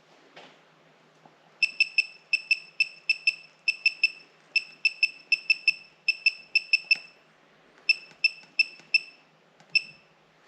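Ratchet wrench clicking in quick runs of several clicks with short pauses between, each click ringing with a high metallic tone, as cylinder head bolts are tightened down.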